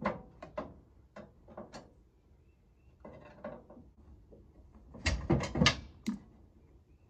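Metal clanks and knocks from the old RV entry steps' steel frame and bolts being worked loose. A few sharp knocks come early, and a quick cluster of louder clanks follows about five seconds in.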